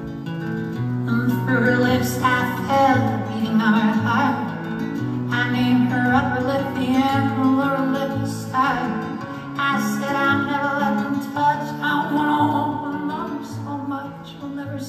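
Man singing in a high, wavering voice over his own acoustic guitar, played live and amplified. The voice comes in phrases of a few seconds over sustained guitar chords.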